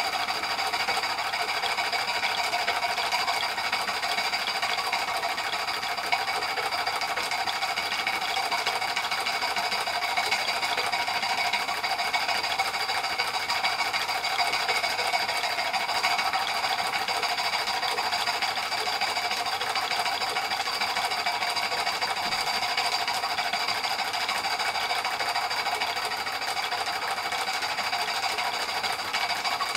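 Märklin 16051 compound twin-cylinder horizontal stationary steam engine running steadily on live steam, its moving parts making a fast, even mechanical clatter that holds constant.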